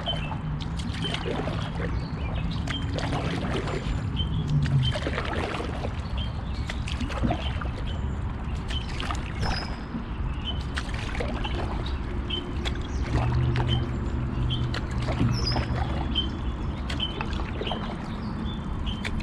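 Paddles stroking and dripping beside an Old Town Discovery 174 canoe gliding on calm water, with small knocks against the hull. A bird chirps repeatedly, about once a second, over a steady low hum.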